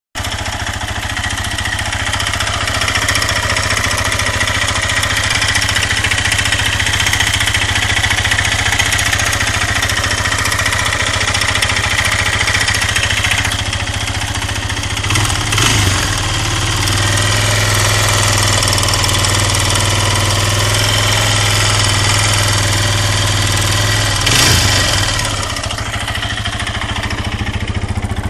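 Suzuki LT-Z400 quad's single-cylinder four-stroke engine running with a knock, with two brief rises in revs, about halfway through and near the end. The knock comes from a worn engine: the piston and cylinder are scored on the exhaust side and the connecting rod has play at its big end.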